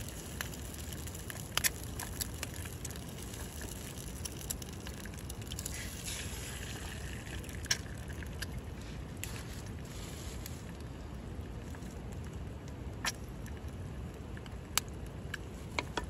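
Eggs frying in oil in a pan on a butane camping stove: a steady sizzle with a few sharp clicks scattered through it.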